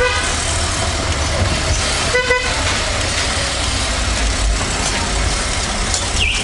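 Car horns honking in heavy city traffic, heard from inside a taxi over the steady rumble of its engine and tyres: a short horn blast at the start and another about two seconds in. A high warbling beep starts near the end.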